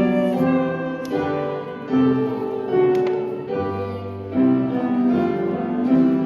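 Background music: a gentle instrumental with piano, notes changing about once a second.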